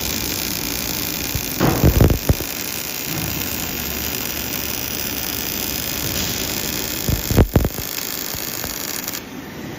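Steady noise of corrugated-fin production-line machinery running, with a few short low knocks about two seconds in and again about seven and a half seconds in.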